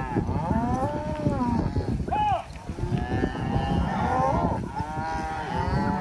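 A herd of cattle mooing: several long, drawn-out calls that overlap and follow one another, with a short one about two seconds in, over a steady low rumble.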